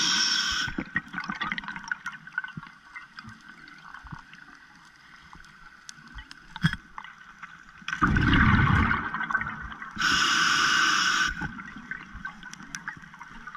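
Diver breathing underwater through a scuba regulator: a hissing breath fades just after the start, a loud gurgling rush of exhaled bubbles comes about eight seconds in, and a hissing inhalation follows a couple of seconds later. Faint clicks and crackles of underwater ambience fill the gaps between.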